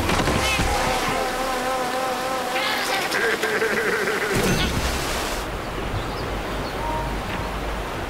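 Cartoon river rapids: rushing whitewater with a cartoon character's wordless wavering cries and yelps over it. About five and a half seconds in the sound turns dull and muffled as the kayak flips and goes underwater.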